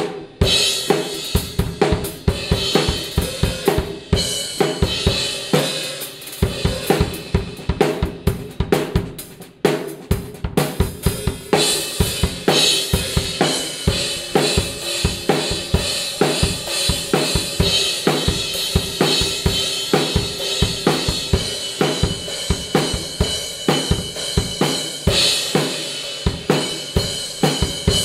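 Acoustic drum kit played in a steady groove: snare, bass drum and hi-hat, with Meinl Classics Custom Brilliant B12 bronze cymbals crashing over it. The playing thins briefly about a third of the way in, and crashes ring out about halfway and again near the end.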